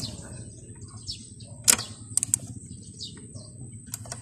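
Small ratchet wrench on the flywheel nut of a Suzuki Smash engine, giving a few sharp metallic clicks as the crankshaft is turned by hand towards top dead centre. Birds chirp briefly in the background.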